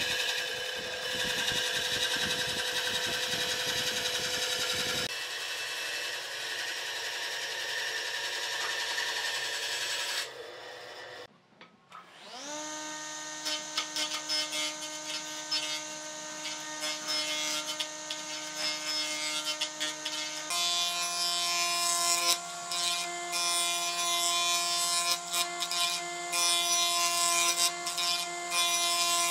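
Electric power tool motor running in several short stretches. About twelve seconds in it spins up from a stop to a steady whine, and its pitch steps up slightly near twenty seconds.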